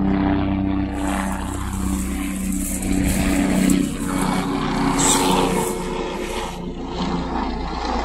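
Low-flying helicopter overhead, a steady pitched drone from its engine and rotor. For a few seconds in the middle a close hiss rises over it.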